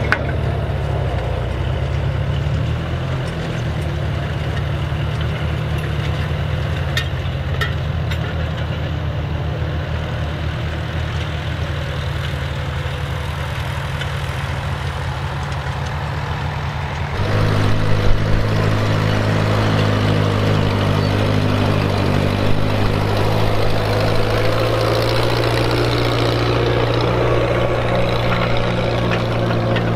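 Vintage Massey Ferguson tractor engine running steadily under load while ploughing. About seventeen seconds in the sound cuts to another tractor engine, louder and lower, pulling a ring roller.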